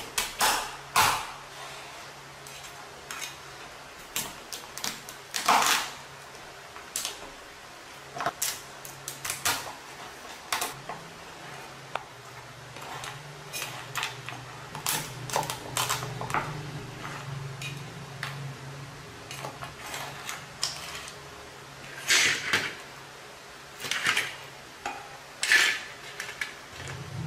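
Large kitchen knife chopping through raw sea crab shells on a wooden cutting board: irregular sharp knocks and cracks. Near the end, crab pieces clatter onto a steel platter.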